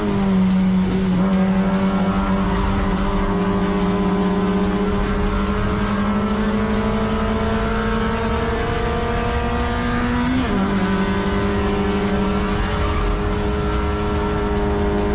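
Honda Brio race car's engine pulling hard under acceleration, its note climbing slowly. About ten seconds in it drops sharply at an upshift, then climbs again in the next gear.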